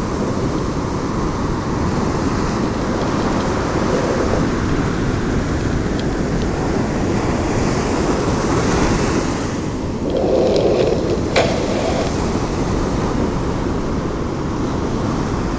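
Steady rushing wash of ocean surf, with wind, and a single sharp click about eleven seconds in.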